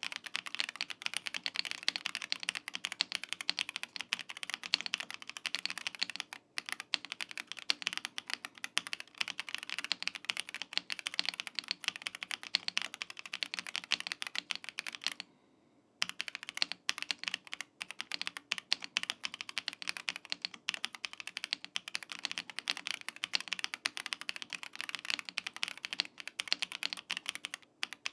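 Rapid continuous typing on a 75% gasket-mounted mechanical keyboard with pre-lubed linear switches, a dense run of keystrokes with one short pause a little past halfway.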